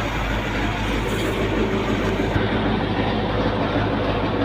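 Tractor engine running steadily at idle, an even rumble with no misses: the freshly repaired engine runs clean with normal oil pressure.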